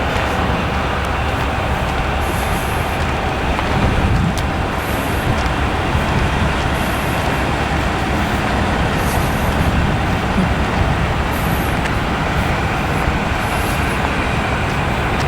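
Steady low rumble of a heavy diesel sand truck's engine running close by, with a few short, faint hisses.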